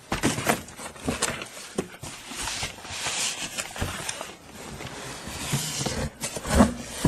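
A cat scrabbling in a cardboard box: irregular scraping and rustling of cardboard with scattered knocks, and a louder thump near the end.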